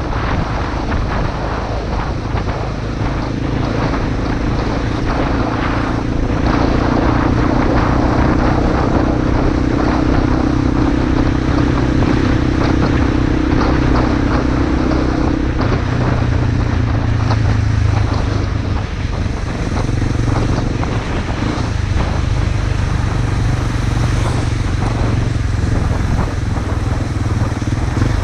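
Honda XR250 Motard's single-cylinder four-stroke engine running under way, heard from the bike with wind noise over it. The engine note holds steady for a long stretch, then shifts about halfway through.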